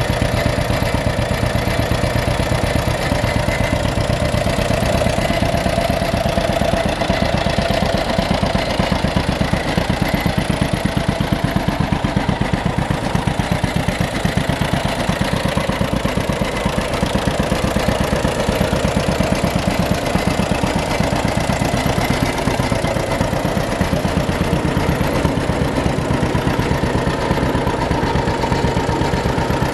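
John Deere B tractor's two-cylinder engine running steadily, with an even, rapid popping beat.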